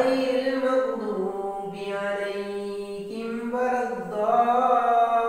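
A man's voice chanting a prayer recitation, slow and melodic, with long held notes that slide between pitches.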